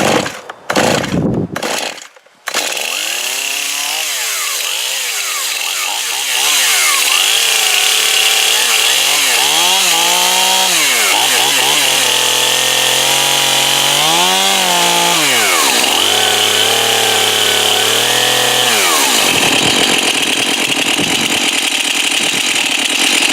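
Stihl Farm Boss two-stroke chainsaw pull-started, catching about two and a half seconds in. It then runs steadily and is revved up and down several times.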